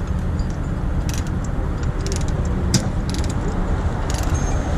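Heavy diesel recovery truck engine running steadily, with scattered light metallic clinks and jingles of rigging chain over it.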